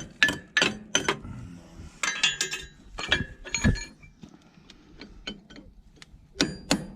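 Sharp metal-on-metal strikes as a hammer knocks torch-cutting slag off a bulldozer's drive sprocket where the bolts were cut out. Blows come in bursts: several hard hits early, lighter tapping in the middle, and another quick run of hard hits near the end.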